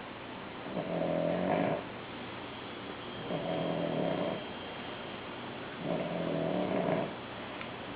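A sleeping pet snoring: three buzzing snores, each about a second long, roughly every two and a half seconds.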